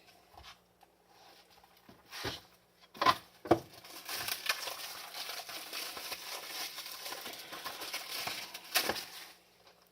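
Plastic wrapping crinkling and rustling as a Blu-ray case is handled and unwrapped for several seconds, after a few sharp clicks of handling.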